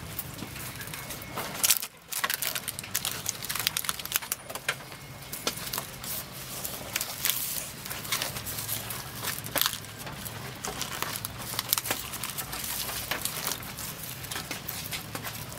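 Banana leaves and dried fibre ties rustling and crackling in irregular clicks as hands fold and bind a leaf-wrapped parcel, over a low steady hum.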